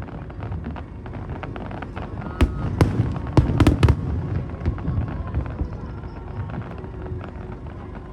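Aerial fireworks going off: a continuous low rumble of bursts, with a cluster of sharp, loud cracks about two and a half to four seconds in.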